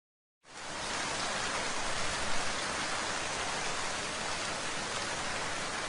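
Steady rain falling, fading in about half a second in.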